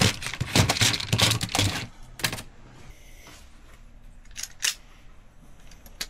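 Quick run of sharp plastic-and-metal clicks and clatter from a hand-held automatic wire stripper being handled, then a few single clicks, one about two seconds in and two more past the middle.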